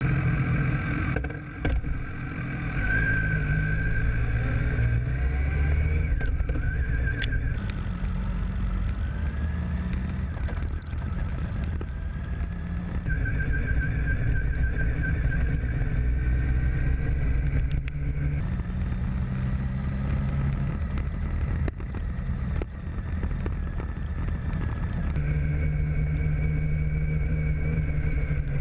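BMW K1200S inline-four motorcycle engine running while riding, heard from the rear of the bike, its pitch rising and falling several times with the throttle, with a high whine at times.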